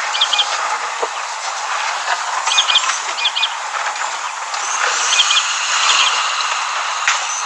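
Bush ambience: a steady hiss of insects and birds, with a short bird call of a few quick high notes repeated every two to three seconds.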